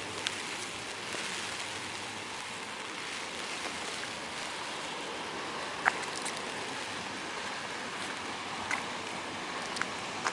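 A river in flood rushing steadily, a constant hiss of fast water, with a few brief sharp ticks, the strongest about six seconds in.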